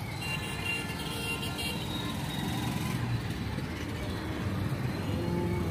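Road traffic passing on the barrage road: a low rumble of engines and tyres that grows louder over the first second, then holds steady.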